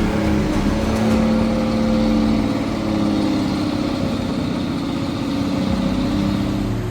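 A motor vehicle engine running steadily at low speed, its pitch drifting slightly up and down.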